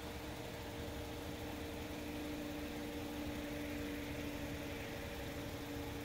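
A car idling while parked: a steady low hum with a faint, unchanging whine over it.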